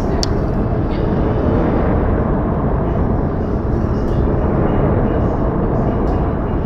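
Outdoor snowfall ambience: a steady, dense low rumble, with a few faint ticks of snow dropping on branches.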